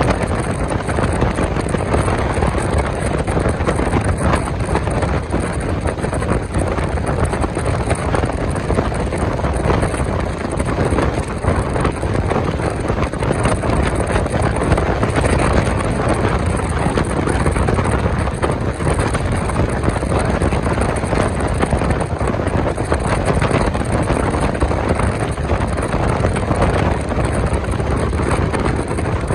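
Steady running noise of a moving passenger train heard from on board, with wind rushing over the microphone.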